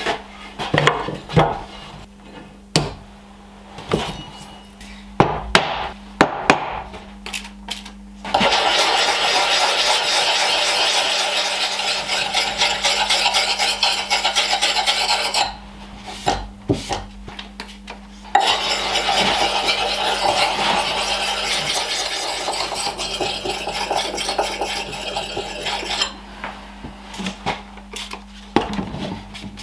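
A few sharp mallet knocks on the workbench, then a round axe puck (double-sided sharpening stone) rubbed along the steel cheek of a Rinaldi Calabria axe, grating in two long stretches of about seven seconds each with a short pause between. This is the cheek being honed after it was filed to a flatter edge profile.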